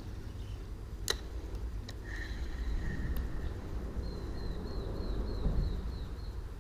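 Steady low outdoor rumble with a single sharp click about a second in, then a faint high tone and, near the end, a quick run of faint high chirps, as from a small bird.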